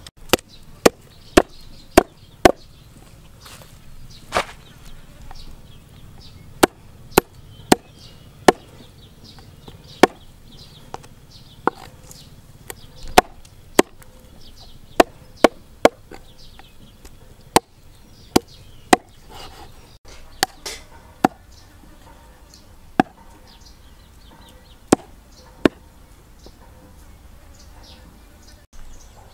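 Knife chopping raw meat on a wooden chopping board: sharp single strikes, about two dozen, coming irregularly in short runs with pauses between.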